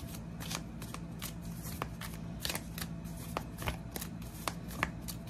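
A tarot deck being shuffled overhand by hand: cards snapping and sliding against each other in quick, irregular little slaps, a few a second.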